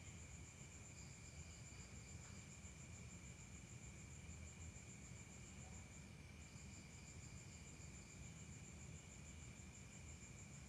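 Faint crickets chirping in a steady, fast high trill, with a second steady high insect tone and short extra chirps now and then.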